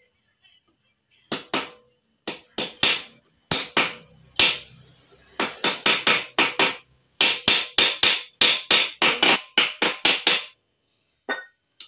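Hammer blows on metal, driving a new steering-head bearing race into the head tube of a Yamaha NMAX scooter frame, with the old race used as the driver. The blows come in quick runs, about four or five a second in the second half, and stop shortly before the end.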